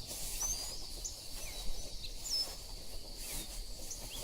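Forest ambience: scattered short bird chirps over a steady high insect drone.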